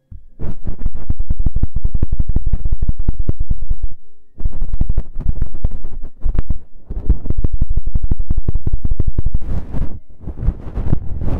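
Feather ear-pick rod scratching and brushing against the ear of a binaural ASMR microphone, a loud, dense run of rapid crackly scratches with a low rumble, pausing briefly about four seconds in and again about ten seconds in.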